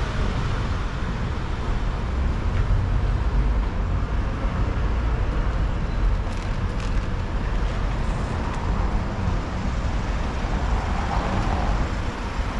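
City street traffic noise: a steady low rumble of vehicle engines and tyres.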